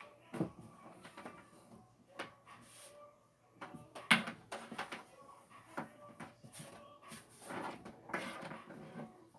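Handling noise close to a phone's microphone: scattered taps and rustles, with the loudest knock about four seconds in as a hand passes right over the phone.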